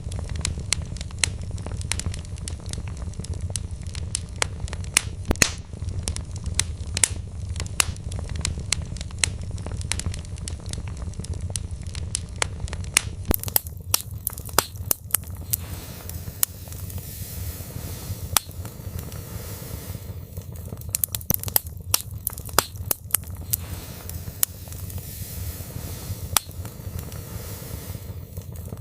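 Wood fire burning in a fireplace: frequent sharp crackles and pops from the logs over a steady low rumble of flame.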